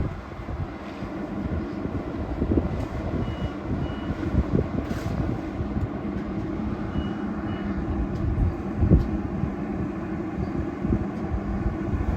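Class 450 Desiro electric multiple unit pulling away, a steady rumble with a few held low tones, with wind buffeting the microphone. Two pairs of short high beeps sound about three and seven seconds in.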